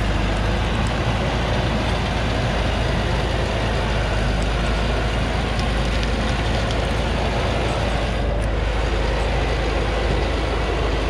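Heavily loaded medium truck's engine running steadily under load as the truck crawls up a steep dirt track, with a deep, even rumble throughout.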